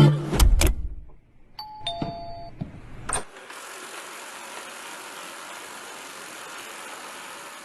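Robot vacuum cleaner sounding a two-note electronic chime, then a click, then the steady hiss of its suction running.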